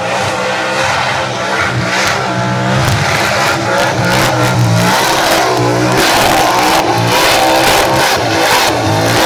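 Supercharged engine of a ute revving hard through a burnout, the revs rising and falling again and again while the rear tyres spin in clouds of smoke.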